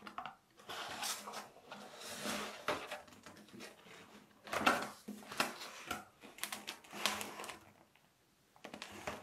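A string of light clicks, taps and rustles of objects being handled, irregular in timing, with a brief lull about eight seconds in.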